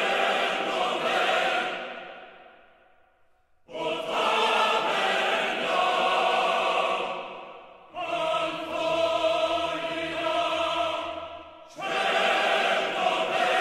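Background music: a choir singing long held chords, a new chord about every four seconds, each swelling and then fading away.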